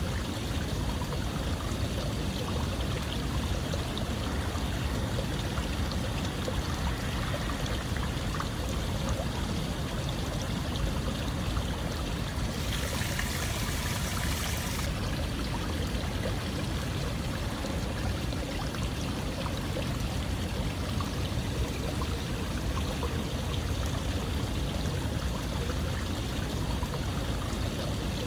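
Running water flowing steadily, an even rushing noise with no pauses. Roughly halfway through, a brighter hiss rises over it for about two seconds.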